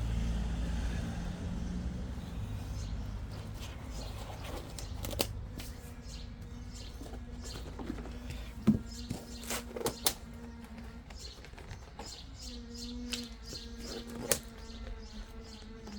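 Outdoor street ambience: a vehicle's low rumble fading away over the first few seconds, then small birds chirping repeatedly over a faint steady hum, with a few sharp knocks and clicks of equipment being handled.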